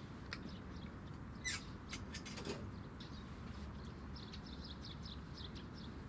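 Aviary's wire-mesh door being opened: a creak about one and a half seconds in, then a few metal clicks of the latch and hinges. Faint budgie chirps follow.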